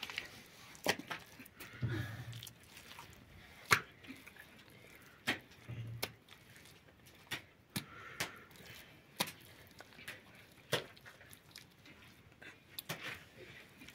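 Hands slapping and pressing wet mud into a wooden brick mould: sharp slaps and knocks at irregular intervals, about one every second or so.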